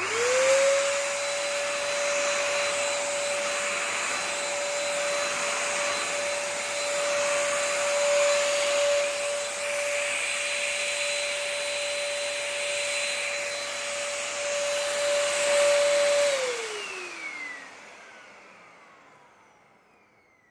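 Corded stick vacuum cleaner switched on with a click. Its motor spins up at once to a steady high whine with a rush of air. About 16 seconds in it is switched off and winds down, the whine falling in pitch as it fades out.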